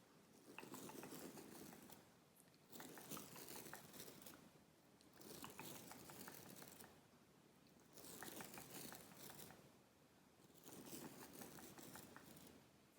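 Close-miked ASMR scratching and crinkling on a pillow, in scratchy bursts of a second or two with short pauses between, about five or six times.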